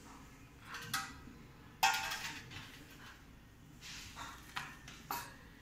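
Light clinks and knocks of a utensil against a steel plate and a glass bowl on the kitchen counter, a handful of short strikes with the sharpest about two seconds in.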